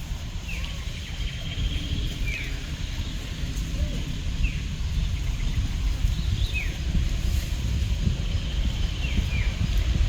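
Outdoor ambience: a steady low rumble with short, falling high chirps every second or two and an occasional brief trill.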